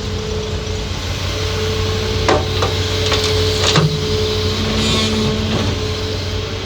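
Hitachi ZAXIS 200 excavator's diesel engine running steadily under work, with a few sharp knocks about two to four seconds in.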